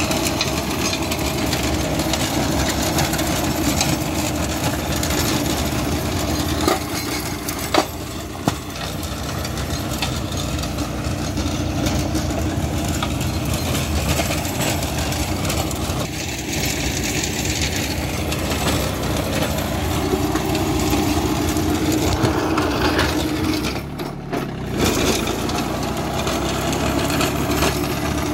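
John Deere 3028EN's three-cylinder diesel engine running steadily under load, driving an RT6012 rotavator that churns through dry soil. A few sharp knocks come about a quarter of the way in.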